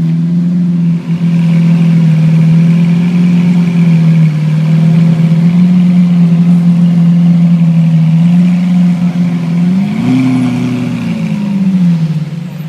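Lamborghini Aventador's V12 engine idling steadily, then revved once about ten seconds in: the pitch rises, holds briefly and falls back over about two seconds.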